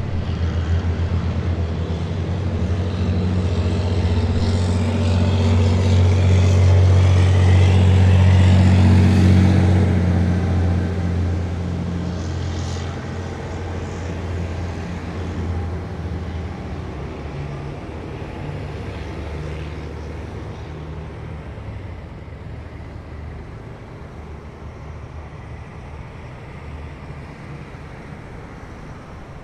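Heavy military vehicles driving past with deep diesel engines running. The sound swells to its loudest about a third of the way in, then fades steadily as they move away.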